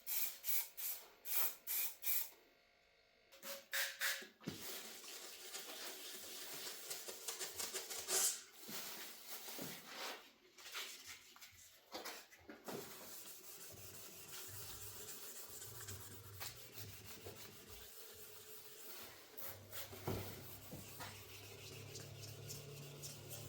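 Hand sanding of body filler on a car panel: quick rhythmic rubbing strokes, a short pause, then a longer stretch of continuous scraping noise.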